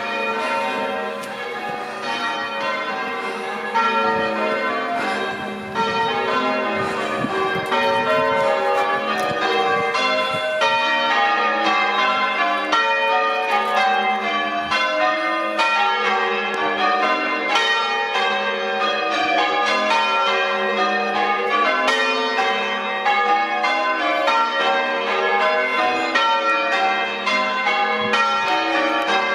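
A ring of church tower bells pealing continuously, one bell striking after another in quick succession so that their tones overlap. The bells get louder at about four seconds in and again at about six seconds in.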